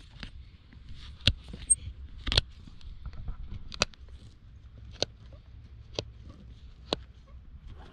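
Hoof nippers biting through the overgrown wall of a long-neglected horse hoof, a series of sharp snaps roughly one a second.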